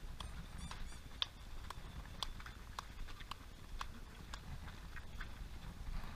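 Running shoes of a stream of marathon runners striking a paved road as they pass, a quick, irregular patter of footfalls.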